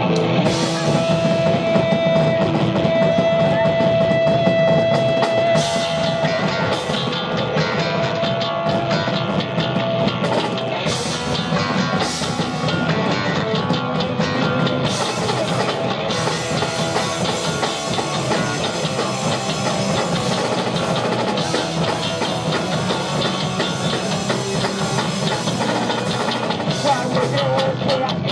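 Live rock band playing loud: drum kit, electric bass and electric guitar together, with a long held high note over the first ten seconds or so.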